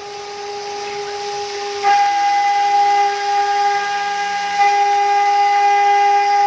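CNC router spindle with a four-flute end mill cutting aluminium composite panel, a steady whine that gets louder about two seconds in.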